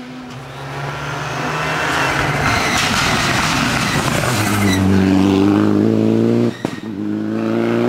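Citroën DS3 rally car at full throttle, approaching, passing close with a rush of tyre and grit noise, then pulling away with the engine held at high revs. The engine note cuts out briefly about six and a half seconds in, then picks up again.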